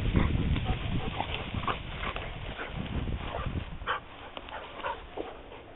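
Two dogs play-wrestling, with short play growls and rustling; the louder, lower rumble fades about four seconds in.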